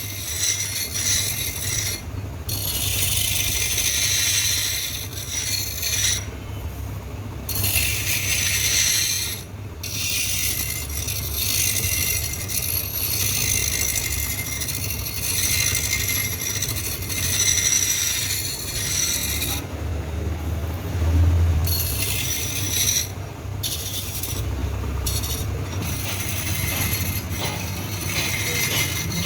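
Machinery running with steady metallic rattling and scraping over a low rumble, cutting out briefly several times.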